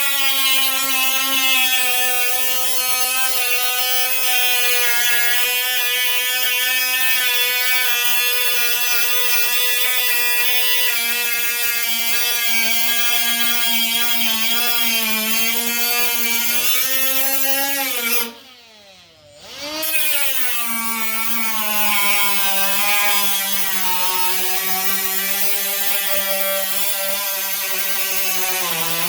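High-speed power cutting tool whining at a steady pitch while cutting through the sheet metal of a 1970 Plymouth Duster quarter panel. About eighteen seconds in it is let off for a moment, the pitch dropping, then spun back up to speed.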